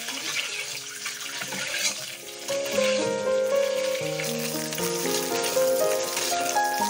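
Peeled boiled eggs sizzling as they fry in hot oil in a kadhai, a steady hiss. Background music, a melody of held notes, comes in about two and a half seconds in and is louder than the sizzle.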